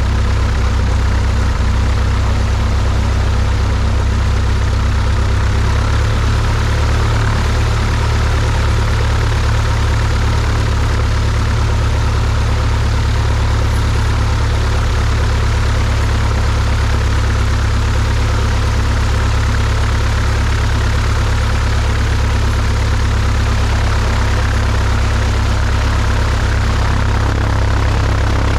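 A Cessna 172's piston engine and propeller run at low taxi power, a steady low drone that does not change.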